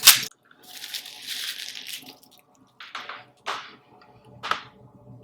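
Small onions being handled and cleaned: a sharp knock, then dry papery skins rustling and crackling in short bursts as the extra skins are rubbed off.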